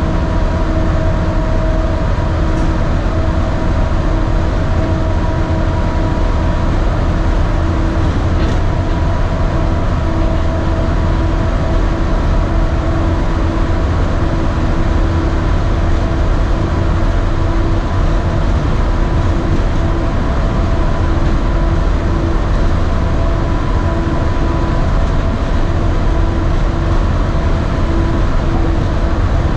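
Walt Disney World monorail cruising, heard from inside the cabin: a steady low rumble with a constant motor whine over it.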